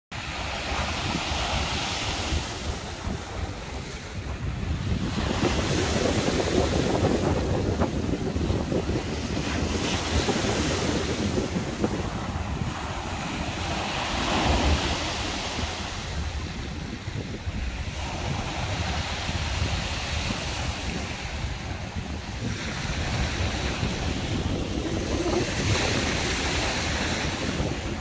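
Waves breaking and washing in over a gravel shore among driftwood logs, surging about every four seconds, with wind rumbling on the microphone.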